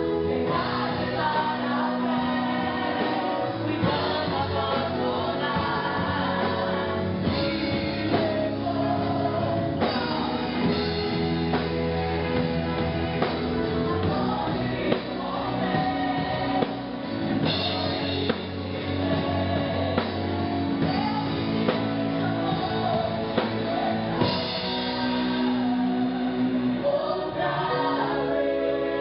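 Gospel worship song: a group of voices singing together over a band with a steady beat.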